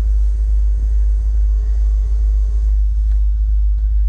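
A steady low rumble, with a couple of faint clicks about three seconds in.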